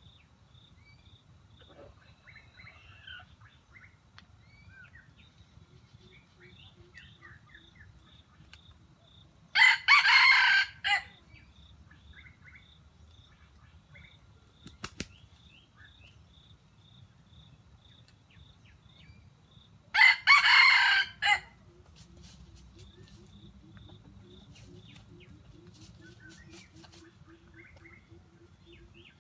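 A rooster crowing twice, about ten seconds apart, each crow about a second and a half long. A brief flutter of wings comes between the crows, with faint chirping of small birds and a steady pulsing insect trill underneath.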